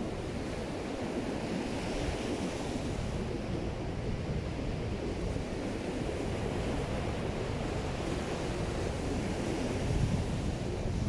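Ocean surf breaking and washing up the beach, with wind buffeting the microphone. A wave surges louder about ten seconds in.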